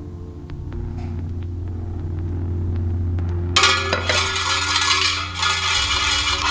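A low droning hum swells steadily, with a few faint small clicks over it. About three and a half seconds in, a loud, dense crash-like noise cuts in suddenly and carries on.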